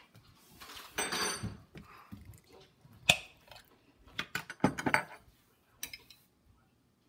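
Kitchen clatter as a metal baking tray of bagel halves and a glass sauce jar are handled at the stovetop: a scraping rattle about a second in, a single sharp knock about three seconds in, then a quick run of knocks and clinks.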